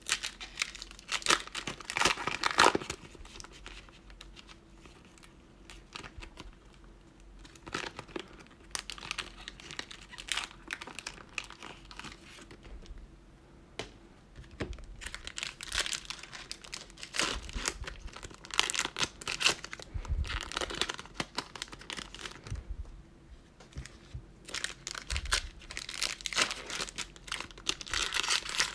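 Plastic wrappers of 2020 Panini Mosaic football card cello packs crinkling and tearing as they are ripped open and handled, in irregular bursts with short lulls between.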